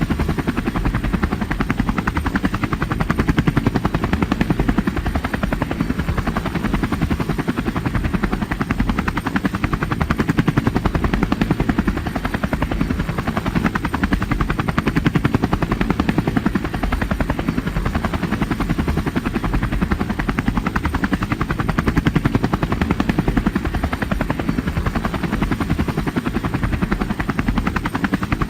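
Helicopter in flight: a rapid, steady chop of the rotor blades over a low drone, rising and falling slightly in loudness.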